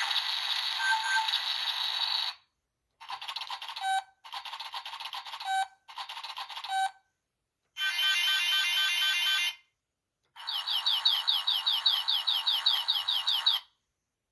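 Electronic sound effects from a children's button sound book, played one after another through its small tinny speaker. First comes a burst of noise, then three short clips, then a warbling beep, then a run of quick rising chirps at about five a second.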